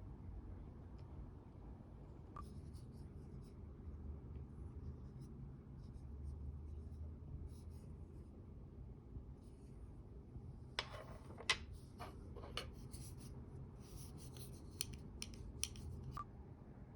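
Faint light scraping and scattered sharp clicks of small objects being handled, busier in the second half, over a low steady hum.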